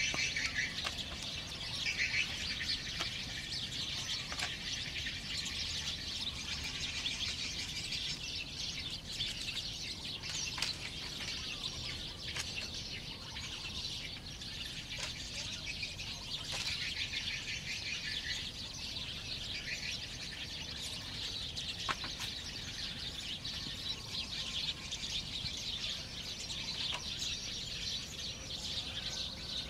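Birds chirping continuously in a dense chorus, with a few sharp knocks of bamboo poles being worked.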